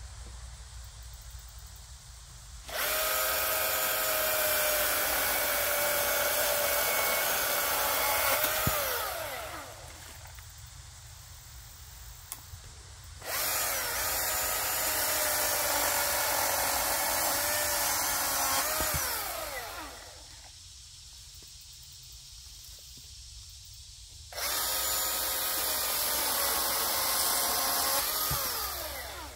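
Milwaukee M18 FUEL 14-inch cordless chainsaw cutting through fallen branches in three separate runs. Each run starts at full speed at once, holds steady for about five or six seconds, then falls in pitch as the brushless electric motor winds down after the trigger is let go.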